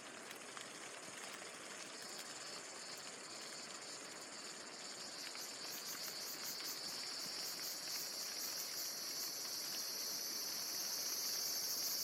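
Chorus of insects calling: a high, shrill steady buzz that grows louder from about two seconds in, with a fast, even pulsing joining it about halfway through.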